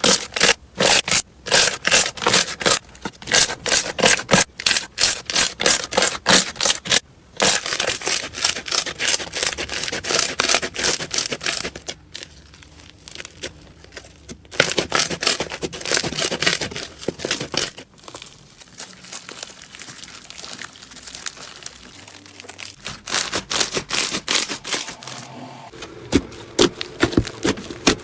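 Slime being squeezed and poked by hand, giving crackling, popping clicks that come in quick runs. The clicks come about three or four a second at first, then turn into a denser crackle, and the texture changes every few seconds.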